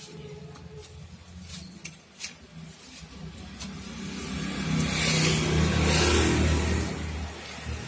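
A motor vehicle passing by: a low engine rumble and a rush of noise that grow louder about four seconds in, peak a second or two later, then ease off.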